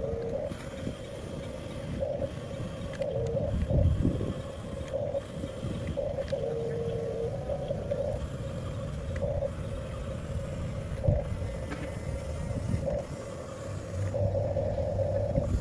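Electric drive motors of a 1/14-scale Huina RC bulldozer whining at one steady pitch that swells in short pulses, over low scraping and rumbling as it works the soil.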